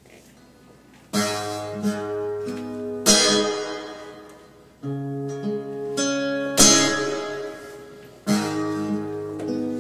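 Cutaway acoustic guitar playing a slow instrumental opening: after about a second of quiet, full chords with low bass notes ring out and fade one after another, a new chord roughly every two seconds, a few of them struck hard.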